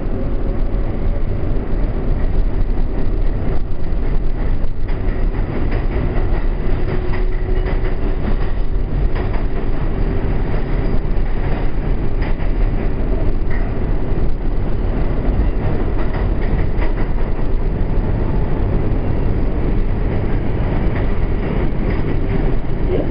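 Interior of a New York City Subway R142A car running through the tunnel: a steady, loud rumble of wheels and car body on the track, with a steady hum over it.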